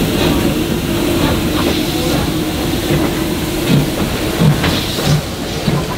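Victorian Railways D3 class steam locomotive 639 rolling slowly past with its wagons, steam hissing from the cylinders. From a bit past halfway, low thuds come roughly every two-thirds of a second as the train moves.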